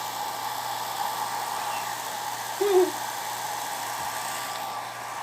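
Handheld hair dryer blowing steadily, a rushing air noise with a hum in it, while hair is being dried. A short hum of voice comes about two and a half seconds in, and the hiss drops a little near the end.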